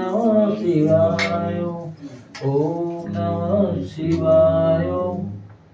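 A man's voice chanting a mantra in long, drawn-out sung phrases, with a short break about two seconds in.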